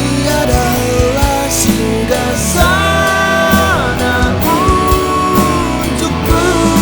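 Rock music: a band with electric guitar and drums, playing held melodic notes that slide down in pitch about three and a half seconds in.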